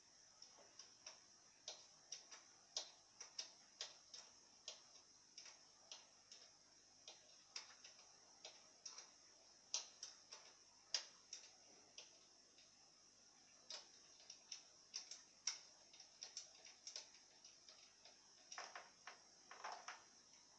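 Faint, irregular ticking, one or two sharp ticks a second, over a steady high-pitched hiss.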